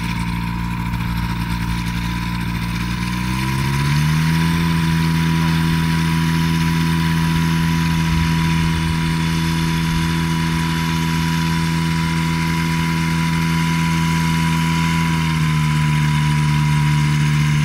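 Phantom ultralight's pusher-propeller engine running on the ground; about three to four seconds in it speeds up to a higher, louder steady note, and near the end it eases down a little.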